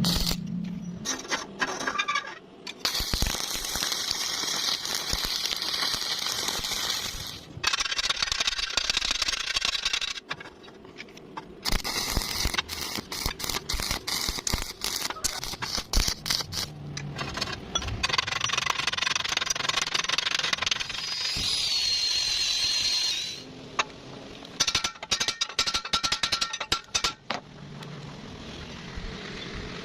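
Stick-welding arc crackling and sputtering in several runs of a few seconds each, stopping and restarting between them, with sharp pops through the hiss.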